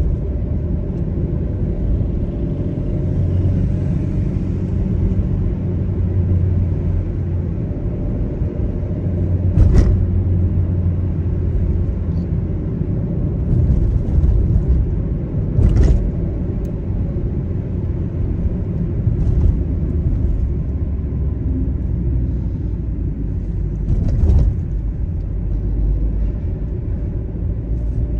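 A car driving along a city street: steady low engine and tyre noise, with three short knocks spread through it.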